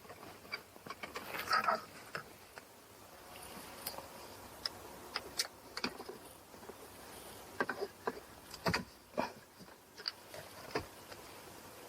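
Scattered light clicks and taps of small objects being handled, irregular rather than rhythmic, with a few sharper clicks in the second half.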